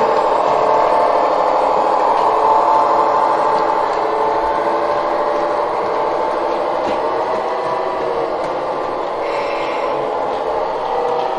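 Model trains running on the layout: a steady whine of electric motors and gear drives, with wheels rolling on the rails.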